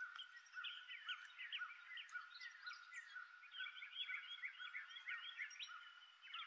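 Faint chorus of frogs calling: a quick, steady series of short chirps, with many more chirps overlapping.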